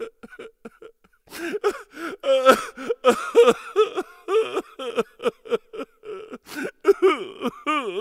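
A person's voice making exaggerated comic outbursts, in quick short bursts several a second, with a long falling wail near the end.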